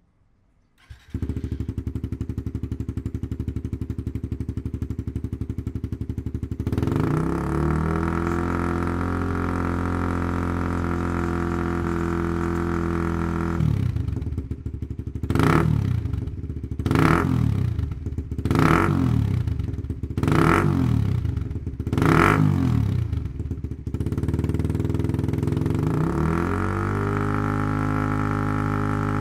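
Suzuki GSX-R150's single-cylinder engine through a Yoshimura GP-Magnum full exhaust system, started about a second in and idling, then stepping up to a steady faster idle. It is revved five times in quick blips, drops back, and rises again to a steady higher speed near the end.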